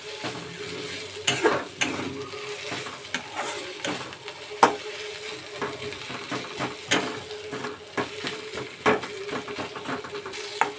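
Metal spatula stirring and scraping frying onions and ginger-garlic paste around a coated kadai, over a steady sizzle of hot oil. The scrapes come irregularly, about one or two a second, in the stage where the masala is fried until its raw smell goes.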